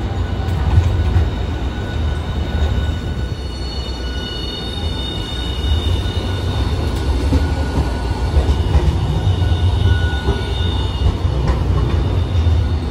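Hiroshima Electric Railway Green Mover APEX low-floor articulated tram running past at low speed on the street track as it pulls in to the stop: a steady low rumble of wheels on rail, with a high-pitched squeal for most of the middle of the pass.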